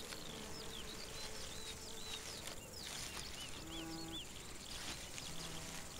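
Quiet field ambience of small birds giving many short, quick chirps, with a short low steady-pitched animal call about four seconds in and another near the end.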